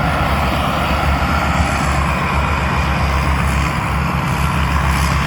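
Tamco rice combine harvester running steadily, its Isuzu 6SK six-cylinder diesel engine giving a continuous even rumble.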